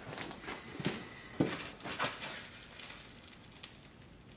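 Rustling with several light knocks, strongest in the first couple of seconds and then dying away: someone stepping up and taking hold of a long sword that lies on an animal hide.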